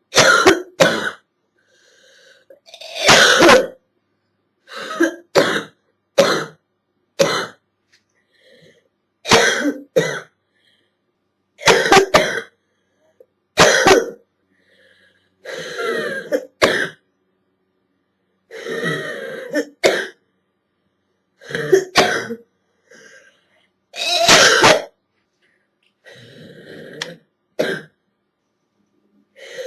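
A girl's hacking cough from a chest cold, coming in short fits of one to three coughs with brief pauses between them.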